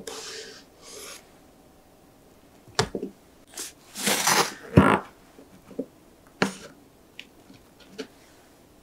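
Kitchen knife sawing through an iced lemon pound cake on a wooden cutting board: short scraping, crackly strokes through the crust and glaze, with a couple of sharp knocks as the blade meets the board, then lighter clicks.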